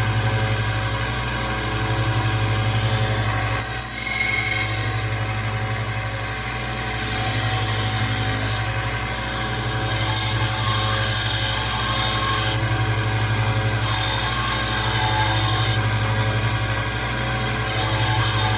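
1x30 Rikon belt sander running steadily while a knife blade is ground on the belt, the hissing of steel on abrasive coming and going in repeated passes every couple of seconds. The blade is being taken down to remove multiple grind lines and reprofile the bevel.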